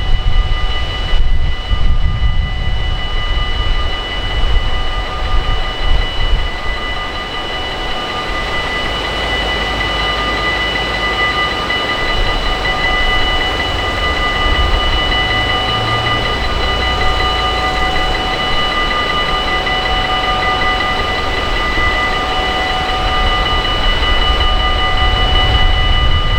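Train running, with a steady high-pitched whine of several tones over a low rumble. Wind buffets the microphone in the first few seconds.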